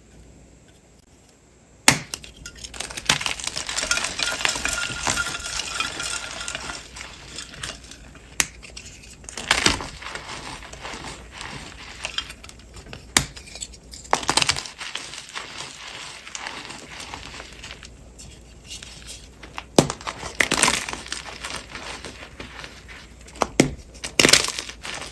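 Hands crushing reformed and paste-coated chalk blocks. There is a sharp crack about two seconds in, then dense crunching and crumbling, with several louder snaps as chunks break apart.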